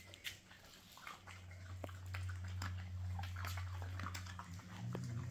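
Dogs eating dry food scattered on a tiled floor: irregular short crunches and clicks, over a steady low hum that sets in about a second in.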